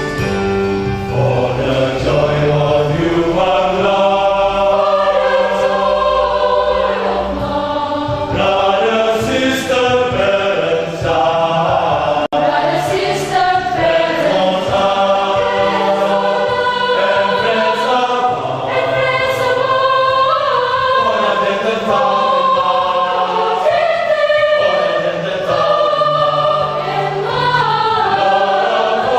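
Student choir singing in parts, holding sustained chords that change every second or two.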